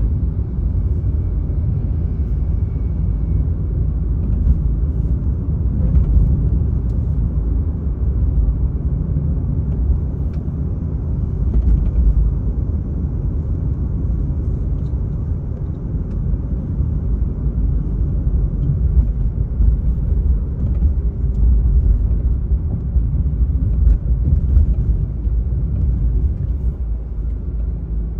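Car driving at road speed: a steady low rumble of tyres, road and engine.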